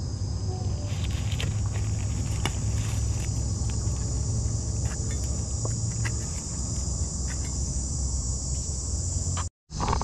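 A steady high-pitched insect chorus fills the background. Over it come scattered clicks and rustles of dry leaf litter and twigs as a wild mushroom is dug out by hand with a blade. The sound breaks off briefly near the end.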